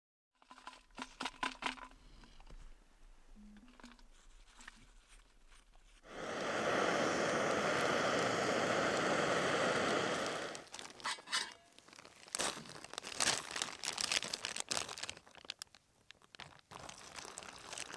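Camp cooking handling sounds: a plastic freeze-dried meal pouch crinkling and crunching, and a drink being stirred in a collapsible cup. In the middle there is a steady rushing hiss lasting about four seconds.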